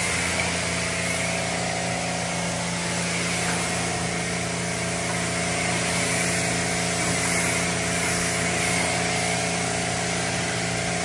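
Kränzle electric pressure washer running steadily, its motor and pump humming under the hiss of a fan-shaped water spray striking a car's paint.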